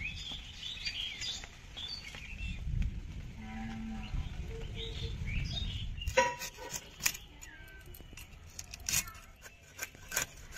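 Fish being scaled against a bonti blade: a run of sharp scraping strokes from about six seconds in, the strongest about a second apart. Before that, birds chirping and a low animal call.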